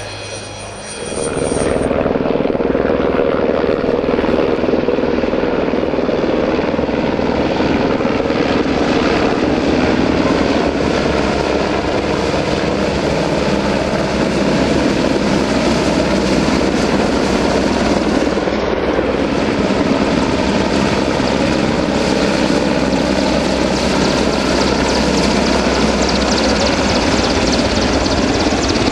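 Royal Navy AgustaWestland Merlin helicopter flying low and slow nearby: steady, loud rotor and turbine noise. Before that, a twin-turboprop plane's engine whine is heard for about the first second.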